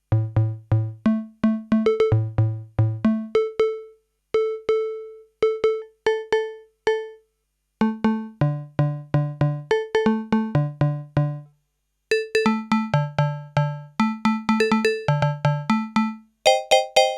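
Yamaha PSR-21 portable electronic keyboard playing a tune in a piano-like voice. Each note starts sharply and dies away quickly, with low bass notes alternating under higher ones. Near the end it changes to a brighter voice playing a repeated chord.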